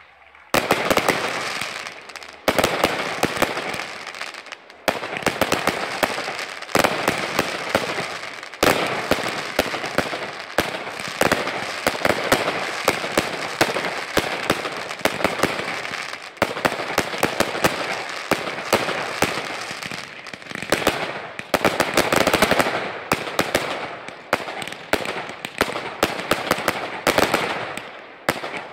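Fireworks display: a rapid, nearly unbroken barrage of launches and aerial bursts, sharp bangs every second or two with dense crackling between them.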